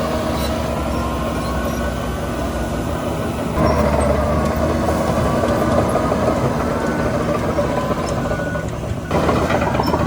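Diesel engine of heavy earthmoving machinery running under load, with a rattling mechanical clatter. It grows louder about a third of the way in and again near the end.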